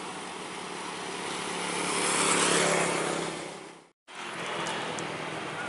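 A motorcycle passing close by, its engine and tyres swelling to a peak and then fading away, before the sound drops out briefly. After that, steady road traffic noise.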